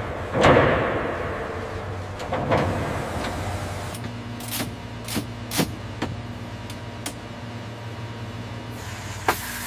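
Factory machinery and tool sounds: two sudden hissing bursts that fade over about a second each, then a steady low hum with several sharp clicks.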